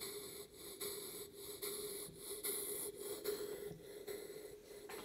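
Exhaust chuffs of a Cretors vertical oscillating model steam engine, run on compressed air, puffing through a copper chuff enhancer at about two puffs a second, with a steady hum underneath. The engine is turning slowly on very low air pressure, about a pound to a pound and a half.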